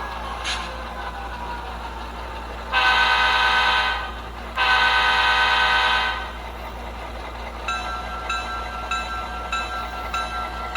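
Sound decoder in an HO-scale F7A diesel model playing its locomotive air horn through a small speaker: two long blasts, then the locomotive bell ringing steadily, about one strike every half second, over a low engine hum.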